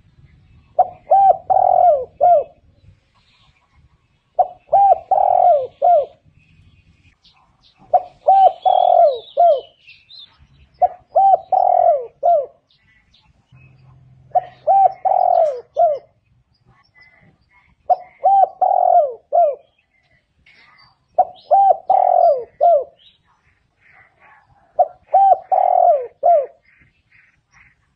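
Spotted dove singing its cooing song: a phrase of several short coos, each phrase about one and a half seconds long, repeated about every three and a half seconds, eight times over.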